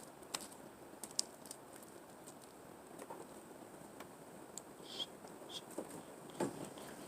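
Homemade beaded slime being kneaded by hand: faint, scattered sticky clicks and crackles.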